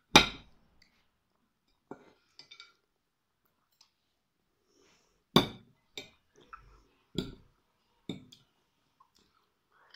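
Metal forks clinking against ceramic plates as lemon pieces are speared. About eight sharp, separate clinks at uneven intervals, the loudest just at the start and about five seconds in.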